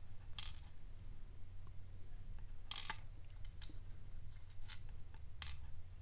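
Faint metallic clicks and taps from a brass padlock lock cylinder and its small pins being handled over a pinning tray while the lock is taken apart: about five short clicks spread out, over a low steady hum.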